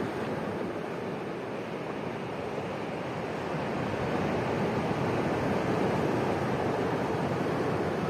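Sea surf breaking and washing over a pebble-and-boulder shore, a steady rushing that swells a little louder about halfway through.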